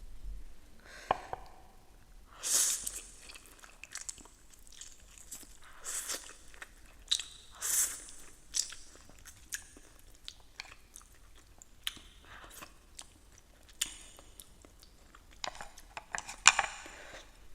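A person chewing and crunching food close to the microphone, with irregular wet clicks and several louder, longer bursts of eating noise, the strongest near the end.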